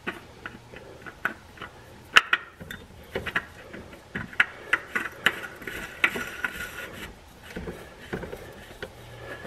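K&N oil filter being spun by hand onto its threaded mount, with irregular small clicks and scrapes from the metal canister and threads; the loudest click comes about two seconds in.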